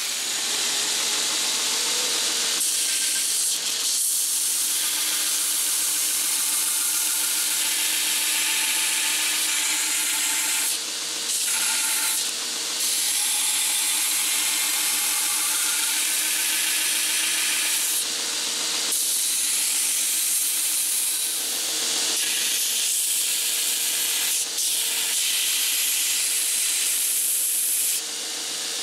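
Bench belt grinder's abrasive belt grinding steel: a steady hiss over the motor's hum, with a few short breaks where the metal comes off the belt.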